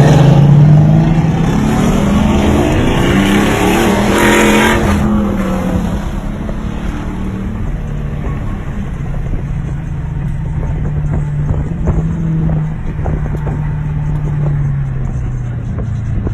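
Car engine revving hard under acceleration, loudest in the first second, its pitch climbing and shifting through gear changes over the first few seconds before settling into a steady drone that eases off near the end.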